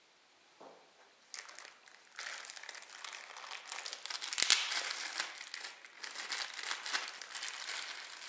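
Clear plastic packaging bag crinkling and rustling as hands unwrap a neoprene binocular strap from it. It starts about a second in and goes on irregularly, with one sharp, louder crackle near the middle.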